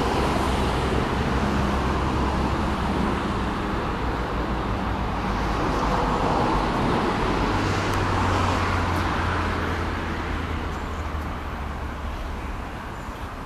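Steady rumble of vehicle engines and traffic, with a low engine drone underneath, a little louder in the middle and easing off near the end.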